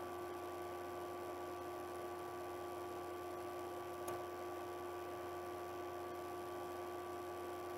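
Faint, steady electrical hum made up of several steady tones, with one faint click about four seconds in.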